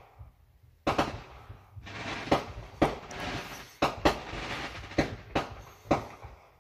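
A backyard fireworks display going off, heard from inside a car: about a second in, a string of sharp bangs begins, coming irregularly every half second to second, with a spell of crackling among them in the middle.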